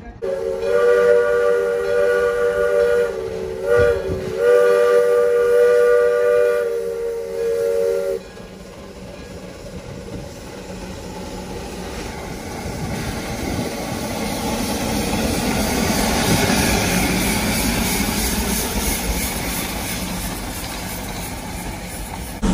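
Steam locomotive whistle blowing a chord of several tones in long blasts, broken briefly about three seconds in and stopping about eight seconds in. Then the hiss and running noise of a Shay geared steam locomotive grows louder as it comes near, with steam venting from its open cylinder cocks.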